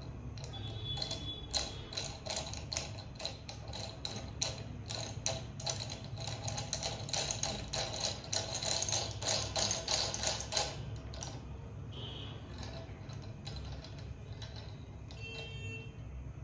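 Rapid, irregular clicking and ticking as a ball-head mount is twisted onto the tip of a metal boom arm. The clicking stops about eleven seconds in, leaving only faint handling sounds.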